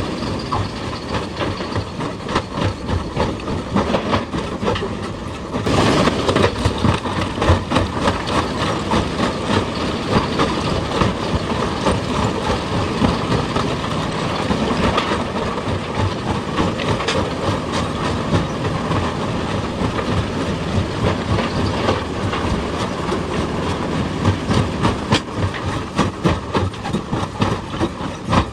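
Heavy excavator working on rock: a steady engine under dense, rapid clattering and knocking, louder from about six seconds in.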